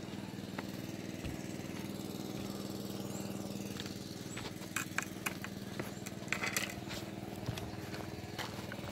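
A motor running steadily in the background, a constant low hum. Several short sharp clicks and taps come in the second half.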